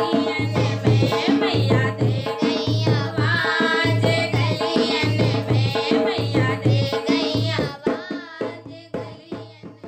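Hindi devotional bhajan to the Mother Goddess: singing over a steady hand-drum beat, fading out near the end.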